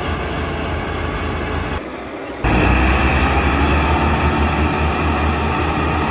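Heavy diesel tractor engines running loud and steady with a deep hum. The sound drops abruptly about two seconds in and comes back louder half a second later.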